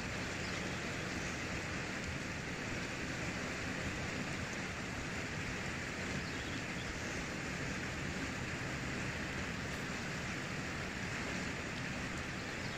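Steady rushing of a river flowing over rocks and rapids.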